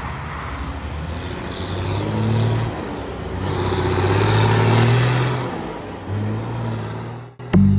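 Highway traffic passing: cars go by and a Chevrolet FTR truck's diesel engine grows louder as the truck approaches, loudest about four to five seconds in, then fading. The sound cuts off suddenly near the end.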